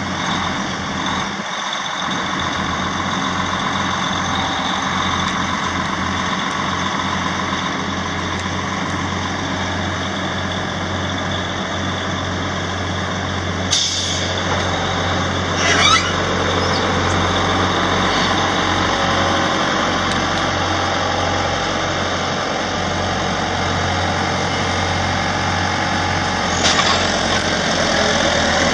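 Log truck's engine running steadily under load while its knuckleboom loader works the grapple. Three short hisses break in, about halfway through, two seconds later, and near the end.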